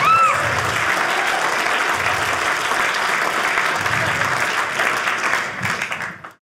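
Studio audience applauding, with a brief rising-and-falling whoop right at the start; the applause cuts off abruptly near the end.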